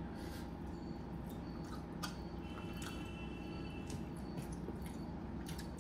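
A person chewing soft steamed chicken momos, with wet, squishy mouth sounds and a few faint clicks over a steady low hum.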